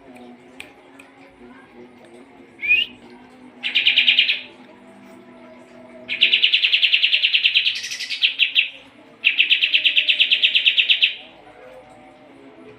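Kapas tembak songbird singing: a short rising note, then three loud bursts of fast, evenly repeated high notes, the middle one the longest.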